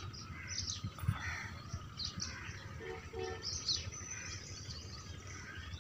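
Birds chirping in short, scattered calls, with two brief lower notes about three seconds in, over low rustling and bumps.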